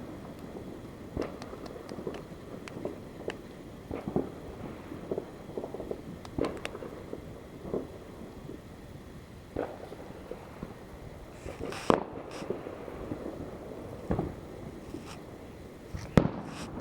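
Fireworks and firecrackers going off: an irregular string of sharp pops and bangs, with the two loudest bangs about twelve seconds in and near the end.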